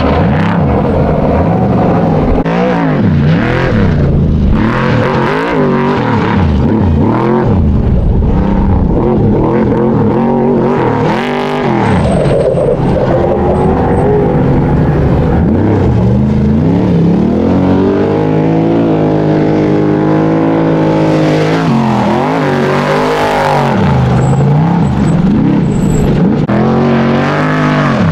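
Trophy truck race engines revving hard and passing by, their pitch repeatedly climbing and dropping, with a steadier held note a little past the middle before it falls away.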